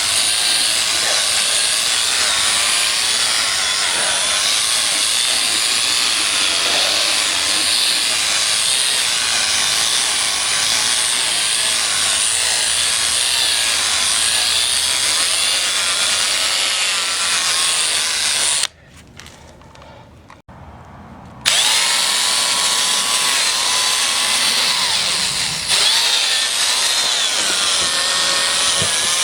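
Electric drill spinning a polishing attachment to buff polishing compound onto a plastic headlight lens, its motor whine wavering in pitch as the speed changes. The drill stops for about three seconds about two-thirds of the way through, then starts again.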